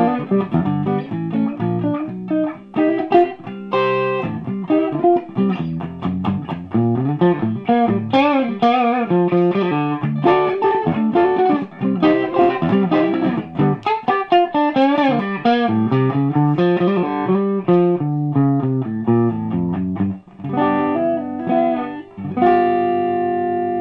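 Electric guitar played clean through a Brit-Tone SVO 100-watt all-tube amplifier with two KT88 power tubes and 12AX7 preamp tubes. It plays melodic single-note and chordal lines with some wavering vibrato notes, ending on a chord that rings out and slowly fades near the end.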